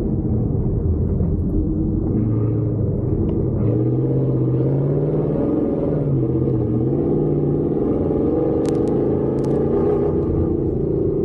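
First-generation Ford Raptor's V8 engine running under changing throttle while driving over dirt, its note rising and falling, with a constant low rumble. A few sharp clicks come about two-thirds of the way through.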